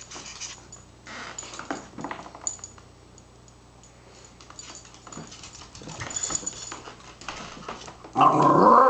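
West Highland white terrier giving a loud, drawn-out 'aroo', a howl-like vocal, near the end. Before it there are only faint scuffles and taps from the dog and cat playing on a wooden floor.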